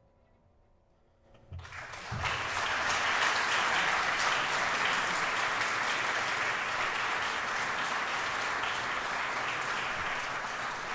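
Near silence for about a second and a half, then a concert audience breaks into steady applause at the end of the piece.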